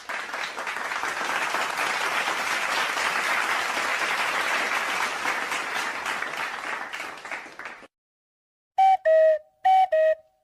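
A crowd applauding, swelling and then fading out after about eight seconds. Near the end, a two-note falling tone sounds twice in quick succession.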